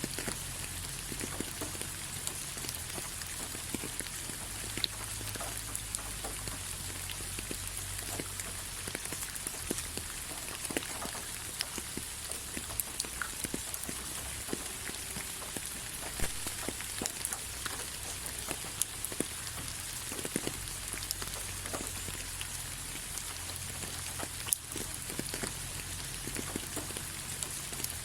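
Steady rain, an even hiss with many individual drops ticking sharply close by, over a low rumble.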